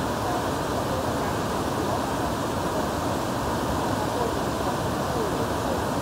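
Tall, wide multi-tiered waterfall cascading down rock ledges: a steady, deep, even rush of falling water with no let-up.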